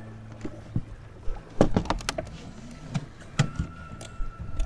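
A small trimaran under way on choppy water, with wash against the hull and several sharp knocks and clatters from the boat's fittings, bunched in the middle.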